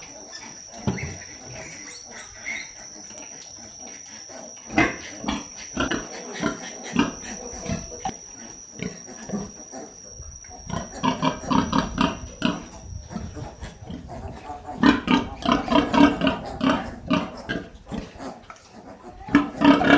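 Pigs grunting and squealing, with the calls growing louder and more frequent in the second half.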